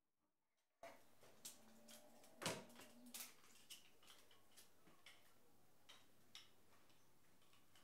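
Faint, scattered taps and knocks of tools and timber being handled on a wooden workbench, the loudest a sharp knock about two and a half seconds in, over low workshop room tone that comes in about a second in.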